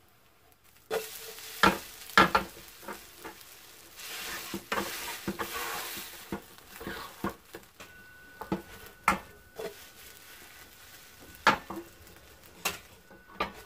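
Mugwort and wild chive pancake frying in oil in a pan, a steady sizzle that starts about a second in, with a metal spatula scraping and knocking against the pan as the pancake is pressed down and worked.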